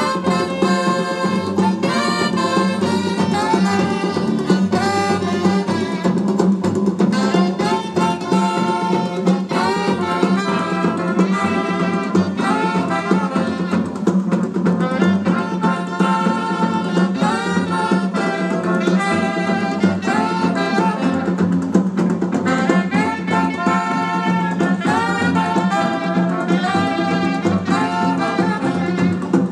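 Jazz music with brass and saxophone, played through a repaired Bose 1801 power amplifier and speakers, with a steady low hum underneath.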